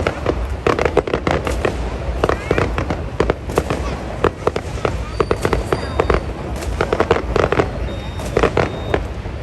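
Fireworks going off in a dense, continuous run of sharp bangs and crackles, one close on another, over a steady low rumble.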